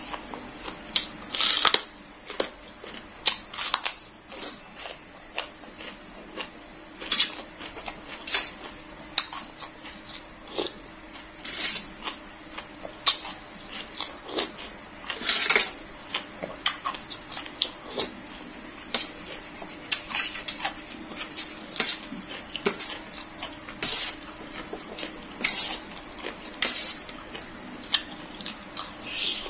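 Steady chirring of crickets in the background, overlaid with close-up eating sounds: chewing of noodles and raw vegetables and irregular clinks of a spoon and fork against a stainless-steel tray.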